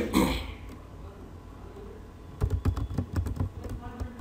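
Computer keyboard typing: a quick, uneven run of keystrokes starting a little over two seconds in. It follows a short, loud sound at the very start.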